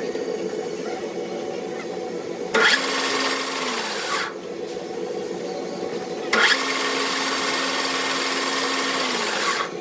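Metalworking machine running with a steady hum, with two loud bursts of harsh, hissing machining noise, about one and a half and three seconds long. Each burst ends with a falling pitch as it winds down.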